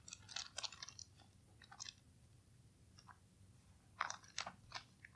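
Faint rustling and crinkling of thin Bible pages being leafed through by hand, in short scattered rustles: a group at the start, a few more in the middle, and another group about four seconds in.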